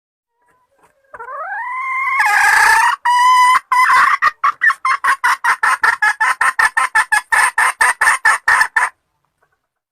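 Red junglefowl hen cackling. It starts about a second in with a drawn-out call that rises in pitch and grows louder, then breaks into a fast run of short clucks, about five a second, that stops abruptly near the end.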